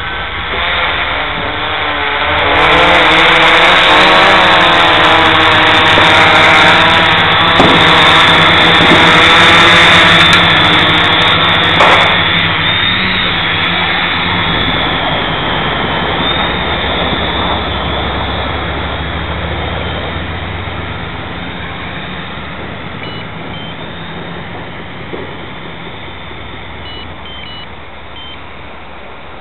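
Small quadcopter's electric motors and propellers running with a steady buzz that wavers in pitch. It is loudest through the first dozen seconds, then slowly fades.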